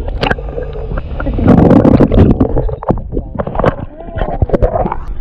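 Water sloshing and gurgling against a camera held under the lake surface and then lifted out, with many sharp knocks and splashes, loudest in the middle.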